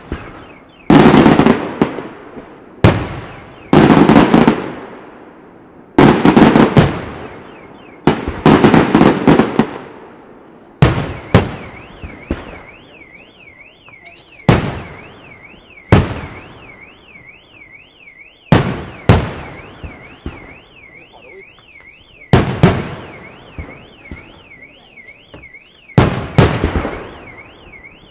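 Aerial firework shells bursting in a display, about a dozen loud bangs that echo away, some in quick pairs. From about halfway an electronic alarm joins in, warbling up and down about three times a second.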